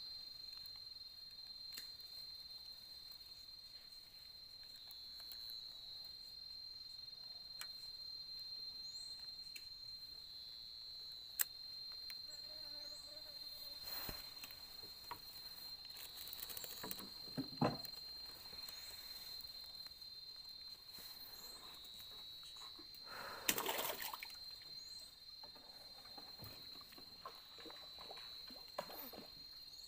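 Insects in the swamp forest chirring steadily at one high pitch, with a few brief knocks and rustles from handling in the wooden boat.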